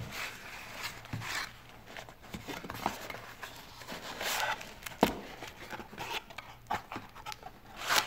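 Small cardboard box being opened by hand: its flaps rub and scrape as the tucked lid is worked free, with scattered light clicks and one sharp click about five seconds in.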